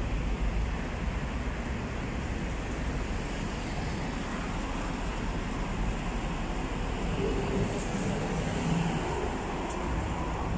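Steady street traffic noise, a continuous low rumble of road vehicles.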